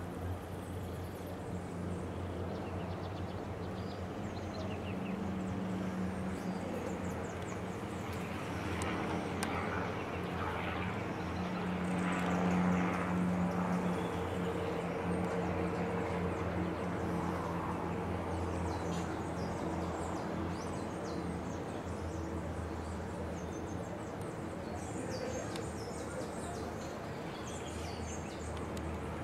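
Urban outdoor ambience: a steady low engine hum of distant traffic, swelling slightly about twelve seconds in, with a few faint high chirps.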